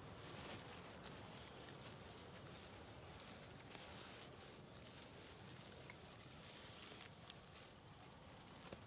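Near silence: faint outdoor hiss with a few small clicks and light rustling from a backpack being handled.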